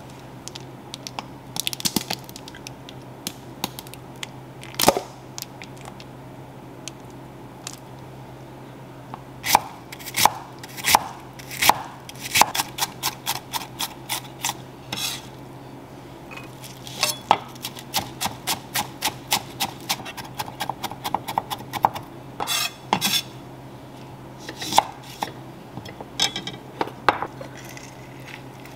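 Kitchen knife chopping onion and herbs on a wooden end-grain cutting board, in runs of quick knocks about four a second, with clinks of a utensil against a ceramic bowl. A low steady hum runs underneath.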